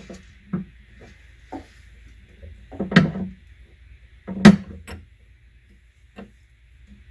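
Metal clicks and clunks of a combination wrench working the nut that fastens a Sherline mill column, with small parts set down on the bench. Two louder knocks come about three and four and a half seconds in.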